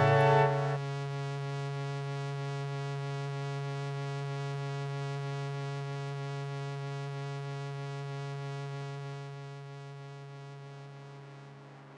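A louder, organ-like sustained chord cuts off just under a second in, leaving a steady buzzing drone that holds one pitch and fades out gradually over the last few seconds.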